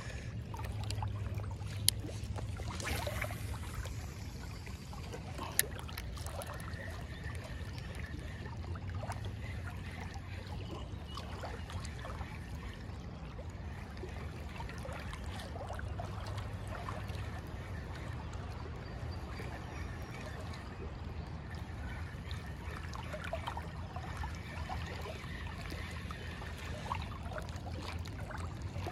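River water lapping and trickling against a kayak hull, over a steady low rumble. A sharp click sounds twice.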